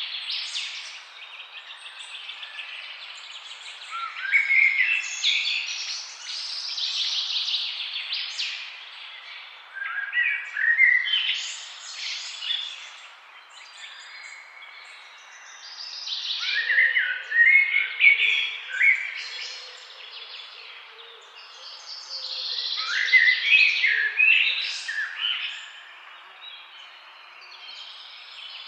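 Songbirds singing: bouts of quick, high chirps and trills every five or six seconds, over a faint steady background hiss.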